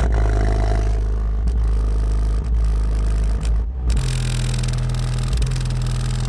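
Bass-heavy music played loud through a car audio system's four Kicker 12-inch subwoofers, heard from outside the vehicle. Deep bass notes are held for seconds at a time, and the note changes about four seconds in.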